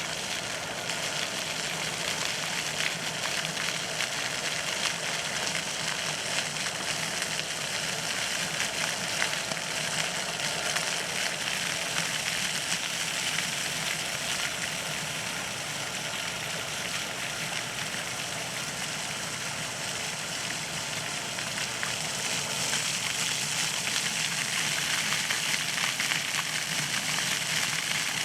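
Park water fountain splashing: a steady rush of falling water that grows a little louder near the end.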